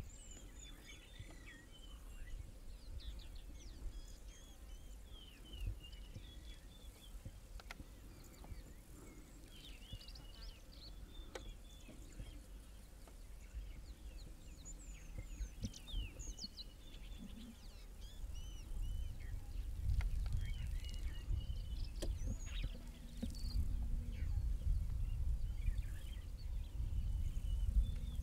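Several birds chirping and calling, short high chirps and trills scattered throughout, over a low rumble that grows louder about two-thirds of the way in.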